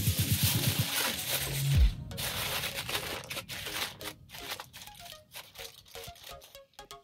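Aluminium foil torn from its box and crinkled over a metal pan, loudest in the first couple of seconds. Background music with short, separate notes runs throughout and carries the rest.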